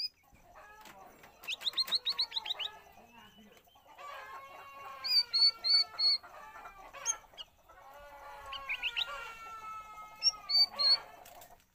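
Cucak rawis bulbul singing: bubbling, warbled phrases broken by quick runs of rapid notes, about a second and a half in and again near nine seconds, and short high notes between them.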